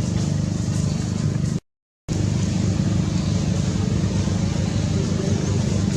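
Steady, loud low mechanical drone like a running engine, with a hiss above it. It drops out completely for about half a second, about one and a half seconds in, then resumes unchanged.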